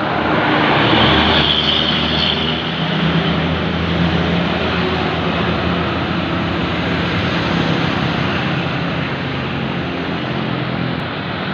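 Tour bus diesel engine running under load as the bus climbs past, loudest about a second in, with a hiss high up for a second or so around then.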